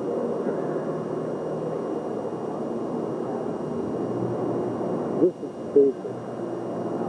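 Reverberant ambience of a large hangar hall with indistinct distant voices. About five seconds in come two short, loud pitched sounds half a second apart, and a steady low hum sets in shortly after.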